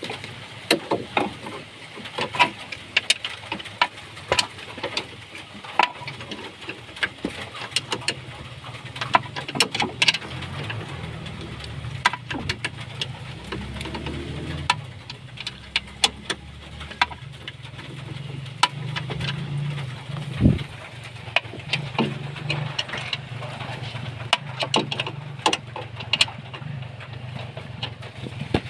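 Repeated sharp clicks and knocks of metal being handled, joined about eight seconds in by a steady low engine hum that keeps running.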